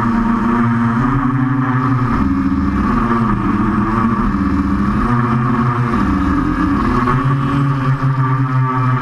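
QAV500 quadcopter's electric motors and propellers buzzing in flight, the pitch repeatedly rising and falling as the throttle changes.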